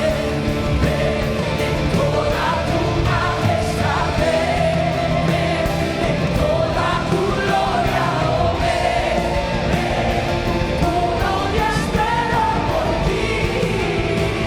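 Worship band playing full-band, rock-style music, with a voice singing over it.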